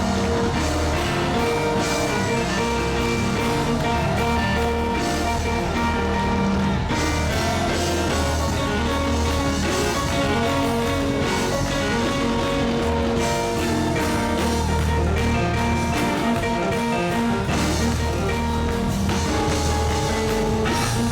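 Live gospel band playing loud, steady praise music with drums and guitar.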